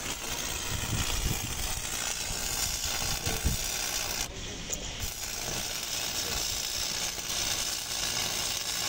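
Stick-welding arc crackling steadily as a bead is run along a steel keel shoe, with a brief break about halfway through.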